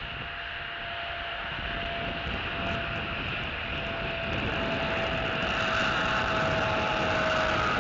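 Distant engine drone growing slowly louder, its faint hum sliding slowly down in pitch, as a vehicle or aircraft approaches.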